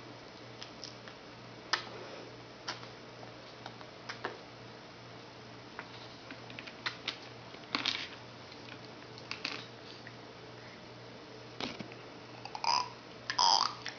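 Scattered light clicks and taps of a baby handling pieces of dry cereal, with a few louder short sounds near the end.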